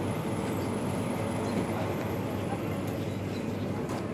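Busy outdoor promenade ambience: a steady low rumble with faint, indistinct voices of passers-by.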